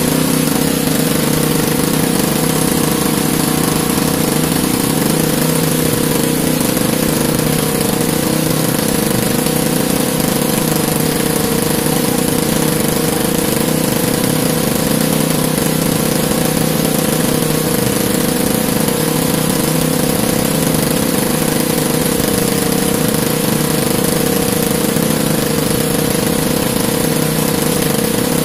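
Small engine on an outrigger fishing boat running steadily at one even speed, with no change in pitch.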